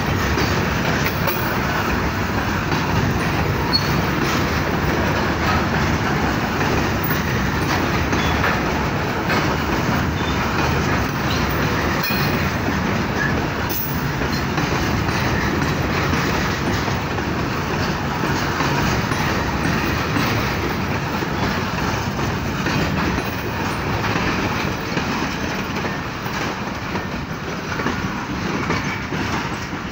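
Freight train of steel hopper wagons rolling past at close range: a steady rumble with the clatter of wheels over rail joints, easing off slightly near the end as the brake van goes by.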